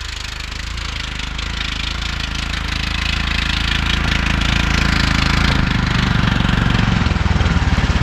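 Snowmobile engines approaching, growing steadily louder. The nearest engine's low, chugging beat comes through strongly near the end.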